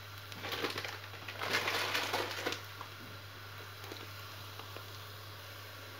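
Metal spoon stirring and scraping onion and tomato paste frying in butter in a steel pot, in two short scratchy bouts in the first few seconds, over a faint steady hum.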